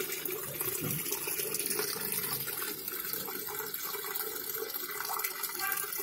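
Water pouring steadily from the inlet into the drum of a Sanken top-loading washing machine. The fill runs on past the set water level: the inlet is not shutting off.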